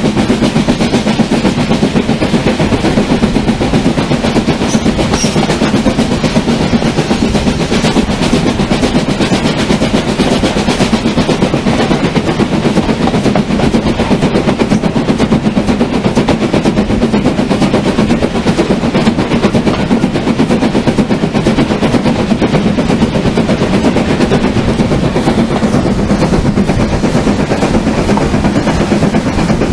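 Steam-hauled passenger train running at speed, heard from a carriage window: a loud, dense, rapid clatter of the locomotive and wheels on the rails, with wind on the microphone. The train is hauled by BR Standard Class 4 tank 80151.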